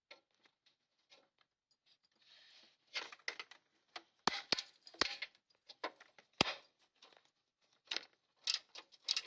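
A series of sharp clicks, clinks and knocks from hand tools and metal parts being handled in a car's engine bay, with a few louder knocks in the middle.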